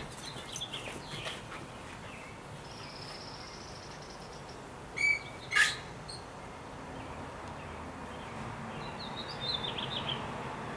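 Songbirds chirping and trilling in short high phrases, with a sharp click about halfway through.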